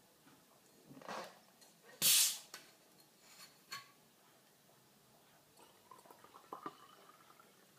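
A green glass bottle of sparkling mineral water is opened. The gas escapes with a short, loud hiss about two seconds in, after a smaller hiss a second earlier. Near the end the water is poured into a wine glass, a trickle that rises in pitch as the glass fills.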